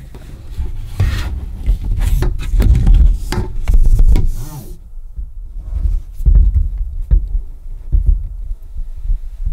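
Handling noise from a washing machine's corrugated plastic hoses: rubbing, rustling and knocking with heavy low thumps as the hoses are pushed into place and the inlet hose is screwed onto the supply valve. Dense for about the first half, then sparser scattered clicks and knocks.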